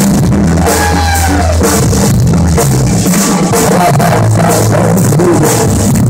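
Live blues-rock band: an amplified cigar box guitar playing over electric bass and a drum kit.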